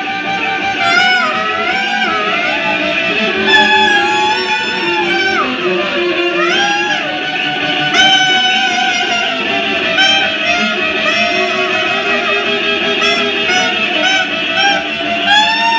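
A fiddle, bowed, and a harmonica playing a tune together, with many sliding, wavering notes.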